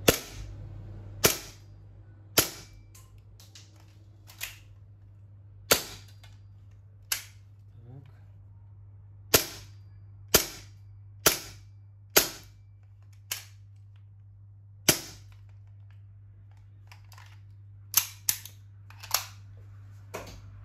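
A WE Beretta M9 gas blowback airsoft pistol firing single shots on black gas: about fifteen sharp cracks, roughly one a second, with a pause of about three seconds before the last few.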